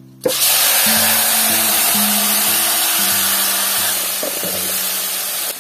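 Boiled grasshoppers tipped into hot oil in an iron wok, bursting into a loud, steady sizzle about a quarter second in that eases slightly over the next few seconds as they are stirred.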